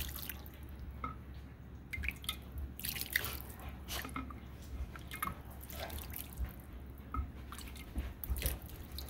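A large spoon scooping gravy from a slow cooker and stirring it into a bowl of wet shredded chicken mix: dripping and squishing, with scattered light knocks of the spoon against the pots.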